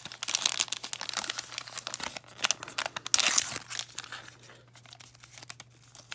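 Small paper wrapper being crinkled and torn open by hand: a dense run of crackles and rustles, loudest a little after three seconds in, then quieter and sparser.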